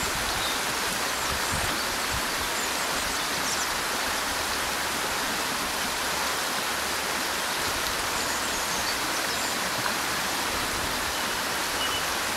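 Steady rushing of a fast, shallow river current flowing over a stony bed.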